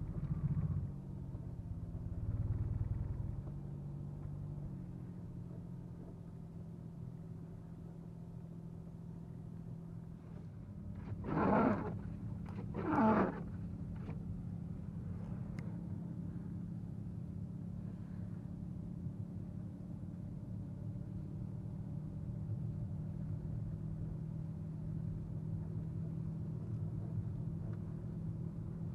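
Chrysler 300's engine and drivetrain humming steadily, heard from inside the cabin while driving slowly through snow. A short swell a couple of seconds in, and two brief loud rushes of noise about eleven and thirteen seconds in.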